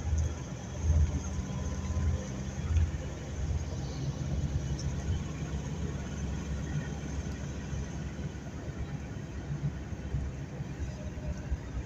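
Steady low rumble of road and engine noise heard from inside a moving vehicle, a little louder in swells during the first few seconds.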